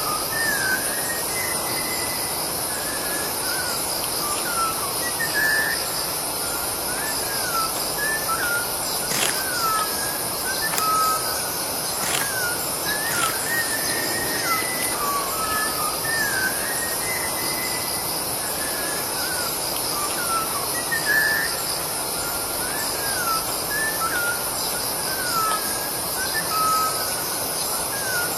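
Birds calling with many short whistled notes, some rising and some falling, over a steady high-pitched drone of insects. A few brief clicks come in the middle.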